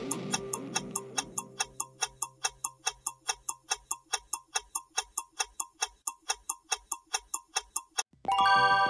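Clock-tick countdown sound effect, quick and even, over the last notes of background music fading out. A little after eight seconds the ticking stops and a loud electronic chime chord sounds as time runs out.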